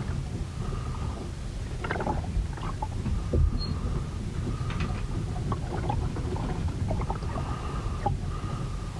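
On board a ship in a storm: a deep, continuous rumble of wind and water, with scattered creaks and knocks from the hull. A faint high creak comes and goes several times.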